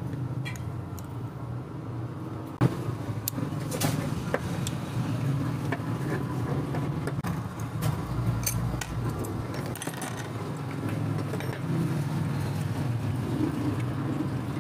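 Screwdriver and small metal parts clicking and clinking against a Yamaha Mio scooter's carburetor as it is taken apart, with a sharp click about two and a half seconds in the loudest. A steady low hum runs underneath.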